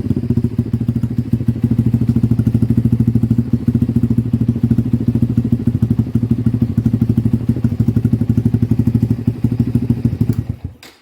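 Venom X22 mini motorcycle's carbureted single-cylinder engine running steadily through an aftermarket slip-on muffler, with a fast, even exhaust pulse. It cuts off abruptly near the end.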